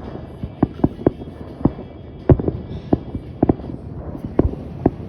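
Fireworks going off: an irregular string of bangs and thuds, about two or three a second, some in quick pairs, each with a short echoing tail.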